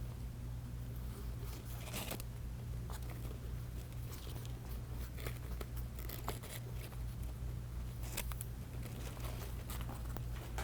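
Hemp cord being handled and pulled while macramé square knots are tied: faint scattered rustles and scrapes, with a few sharper ticks. Under it runs a steady low hum.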